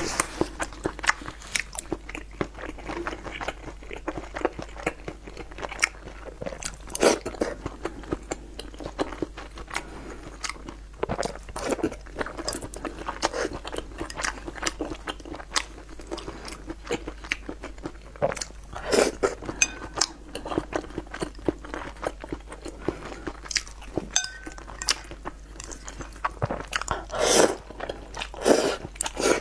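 Close-miked chewing and biting of food with wet mouth clicks and smacks, and loud slurping of noodles from spicy broth near the end.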